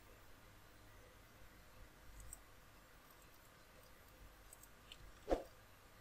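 Faint computer mouse clicks over quiet room tone, with one slightly louder click about five seconds in.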